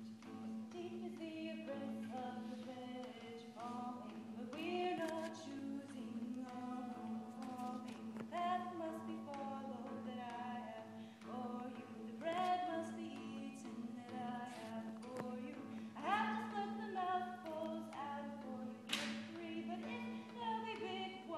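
A group of voices singing together, accompanied by an acoustic guitar, over a steady low hum.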